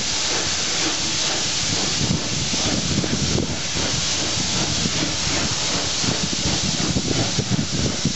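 Steady hiss of steam from Southern Railway unrebuilt West Country 4-6-2 steam locomotive no. 34092 City of Wells, heard from a carriage window as the train runs along, with a low rumble of the train underneath.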